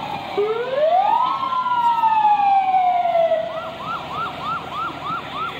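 Fire department ambulance siren sounding: a wail that climbs steeply for about a second, then slowly sinks, and from about halfway on switches to a quick yelp of about three sweeps a second.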